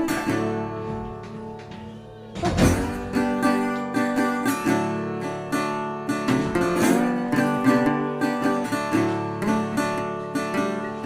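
Background music of acoustic guitar, plucked notes and strummed chords. It dies down briefly, then comes back with a strong strum about two and a half seconds in.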